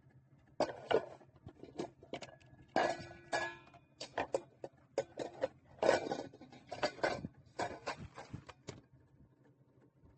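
Hard kitchenware clattering and clinking as it is handled and set down: a quick irregular series of knocks and clinks, some with a brief metallic ring.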